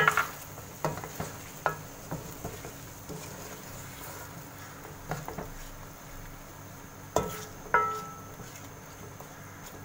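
A spatula stirring chicken and tomato paste frying in a pan, with a steady sizzle underneath. Several sharp knocks of the spatula against the pan, the loudest two near the end, one ringing briefly.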